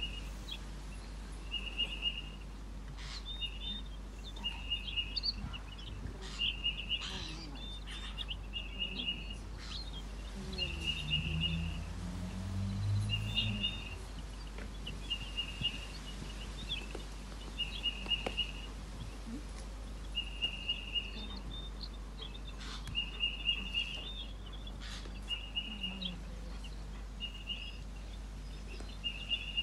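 A bird repeating a short call of even pitch about every one and a half to two seconds, with fainter high chirps and a few clicks between. A low hum rises briefly near the middle.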